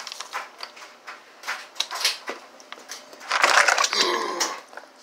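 Irregular taps and clicks of things being handled, then a loud rubbing scrape about three and a half seconds in, as the phone's microphone is grabbed and covered.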